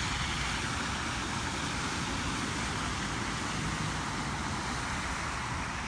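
Cars driving through a flooded road: a steady hiss of tyres through standing water.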